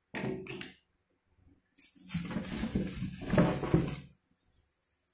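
Vacuum-cleaner accessories and their plastic packaging being handled: a brief rustle at the start, then about two seconds of louder rustling and clatter.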